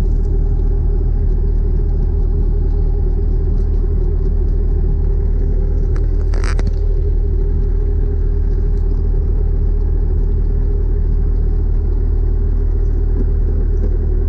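Piston-engine helicopter running steadily after start-up, engine and turning rotor blades making a constant deep drone heard from the cockpit. A brief click comes about six and a half seconds in.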